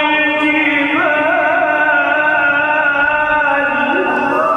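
A man's voice in melodic Quranic recitation (tajweed), drawing out a long ornamented vowel on sustained notes. The pitch steps up about a second in and shifts again near the end.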